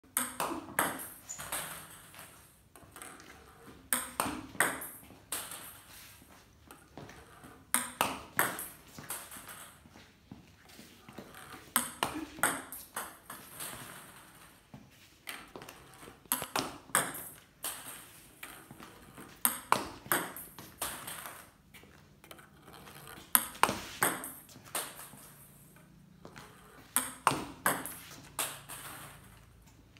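A table tennis ball bouncing on the table and being struck with a paddle. Each rally is a quick run of sharp clicks, and the runs repeat about every four seconds.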